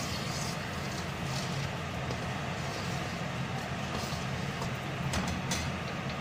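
Mustard seeds, chana dal and urad dal frying in hot oil in a steel kadai, a steady sizzle as the dals turn brown for the tempering. A steady low hum runs underneath, and a few sharp clicks come near the end.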